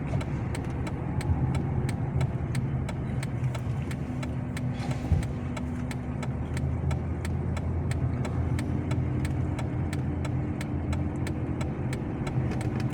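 Inside a 2007 Chrysler 300C driving over a rough road: steady engine and road hum, with a single thump about five seconds in. The car, with freshly replaced shock absorbers and suspension bushings, is being driven over broken road to bring out any suspension noise.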